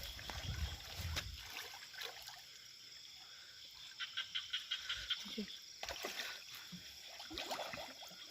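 Pond frogs calling: faint trains of rapid croaking pulses, one run about four seconds in and another near the end. Low knocking and rumble in the first second or so.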